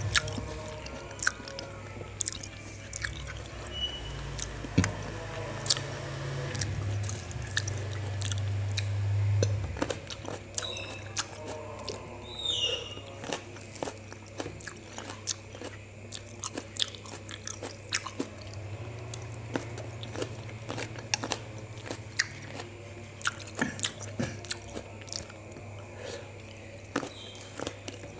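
Close-up chewing and biting of black grapes in peanut sauce: wet, juicy mouth sounds with many short crunches and clicks scattered through.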